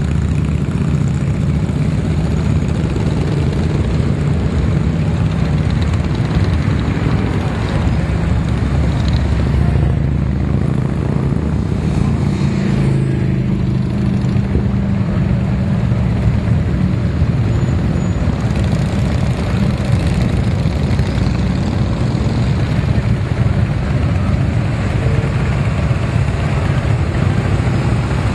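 Motorcycles, cars and pickups passing in a steady stream of traffic. Their engines blend into a continuous, loud, low drone with no gaps.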